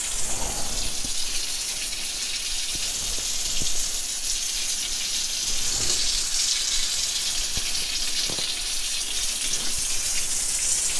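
Water running steadily from a bath mixer tap, the stream splashing onto a tiled shower floor: an even hiss. The tap is left running to test for hot water, which comes out ice cold.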